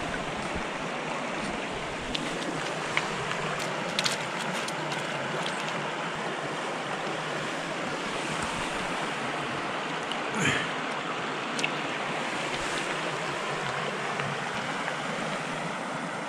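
Steady rush of a small trout stream's water running over riffles, with a few light clicks and one brief louder sound about ten seconds in.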